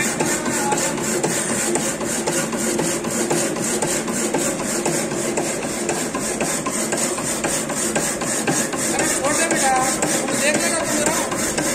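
Workshop machine tool running with a rapid, even clatter of about five strokes a second.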